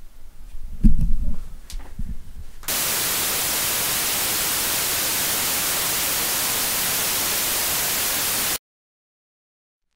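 Loud, steady white-noise static that starts abruptly about a quarter of the way in and cuts off suddenly to dead silence near the end. Before it come a few low thumps and clicks.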